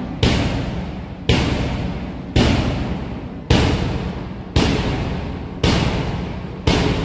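A large drum struck at a slow, steady beat, seven strokes about a second apart, each ringing out before the next, the kind of beat that paces a PT drill.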